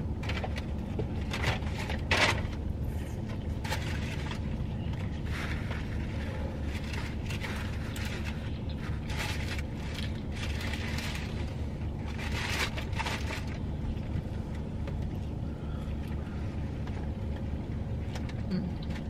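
Close-up eating sounds of a sandwich being bitten and chewed: a string of irregular wet, crunchy mouth clicks that thin out over the last few seconds, over a steady low hum in the car.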